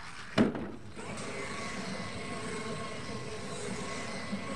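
Radio-controlled monster truck coming down hard with one sharp thump about half a second in, then its motor whining steadily as the tyres spin through loose dirt.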